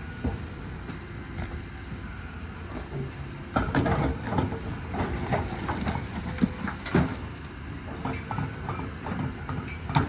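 Heavy demolition machinery running steadily while it breaks up the masonry tower. From about three and a half seconds in come repeated irregular knocks and crunches of concrete and stone being broken and falling.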